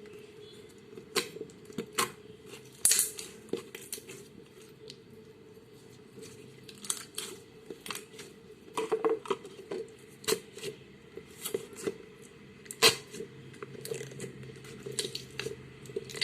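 Slime being squeezed and stretched by hand, giving off irregular sticky clicks and pops, a few of them louder.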